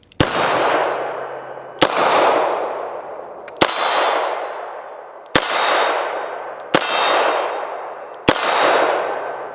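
Six .45 ACP shots from a Smith & Wesson 325 Night Guard revolver at a steady pace, about one every second and a half. Each shot is followed by a steel target ringing and fading out, which shows each round striking the steel.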